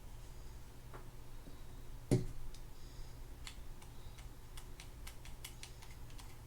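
Light clicks and taps of small metal reel parts and a screwdriver being handled, with one louder knock about two seconds in and a scatter of quick ticks later on.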